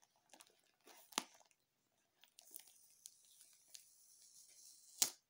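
A paper sticker being picked and peeled off the plastic shrink-wrap of a coiled extension cord: faint scattered crinkling and scratching, a longer tearing hiss in the second half, and one sharp click near the end.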